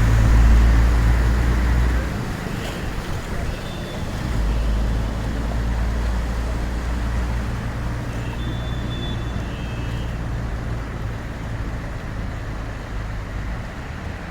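Low, steady rumble of vehicle engines and road traffic, loudest at the start, dipping after about two seconds and returning a couple of seconds later.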